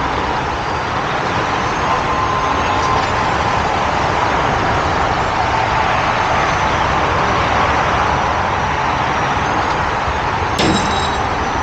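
Heavy truck diesel engine running steadily, with one sharp click about ten and a half seconds in.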